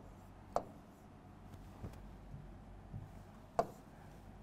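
Quiet room hum with a few faint, short taps of a pen on an interactive display board as numbers are written on it, two of them clearer than the rest.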